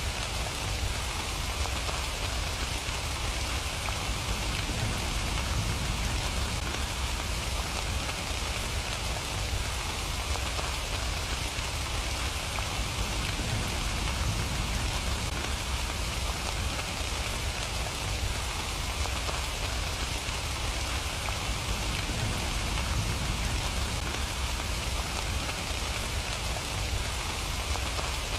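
Steady rain falling: an even, unbroken hiss of drops with a constant low rumble underneath.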